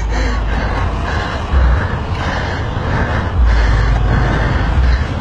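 Motorcycle engines running and road traffic noise on a multilane highway: a steady rumble with a heavy low end that swells several times, with no clear pitched engine note standing out.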